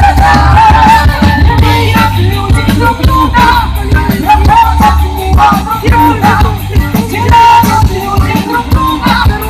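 A song performed live with singing over amplified band music with a heavy bass line.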